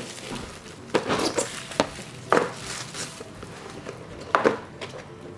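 Plastic shrink wrap crinkling as it is pulled off and crumpled from a cardboard model-kit box. Several sharp taps and knocks come from the box being handled.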